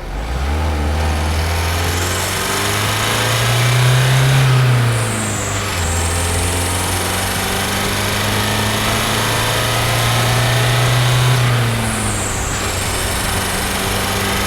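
Renault Master IV van's 2.3 dCi diesel engine accelerating under load: the revs climb, drop at a gear change about five seconds in, climb again, and drop at a second change about twelve seconds in before holding steady.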